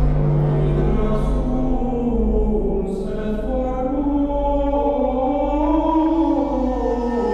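Background music: sustained, slowly moving choir-like voices over a steady low drone.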